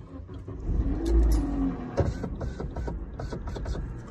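A car engine starting: a low rumble and a pitch that rises then falls about a second in as it catches, then running steadily with light ticking.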